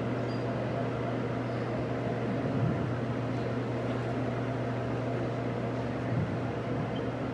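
Steady low hum and hiss of a large hall's background noise, from electric floor fans and the sound system.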